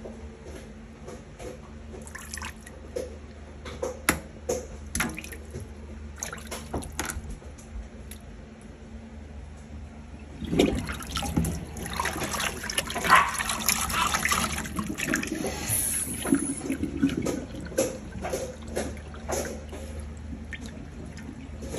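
Water in a stainless steel kitchen sink: scattered drips and small knocks at first, then about halfway through the drain is opened and the water rushes down it, settling into irregular gurgling.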